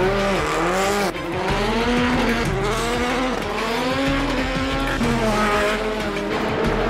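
Hyundai Veloster rallycross car's turbocharged four-cylinder engine revving up and down over and over as it is driven hard, its pitch rising and falling about once a second.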